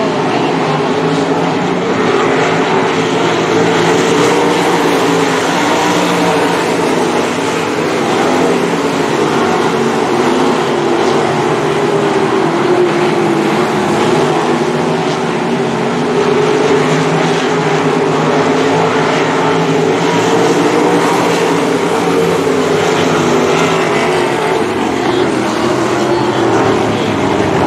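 A field of 305 sprint cars racing, their 305-cubic-inch V8 engines running together in a loud, continuous drone, with the engines' pitches wavering up and down throughout.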